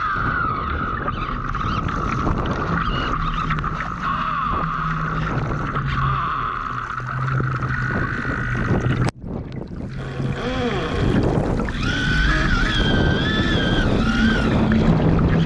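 Water rushing and splashing against the hull of an RC Laser model sailing yacht heeled over in choppy water, with wind buffeting the onboard microphone. Wavering high whining tones run over it, and the sound breaks off abruptly for a moment about nine seconds in.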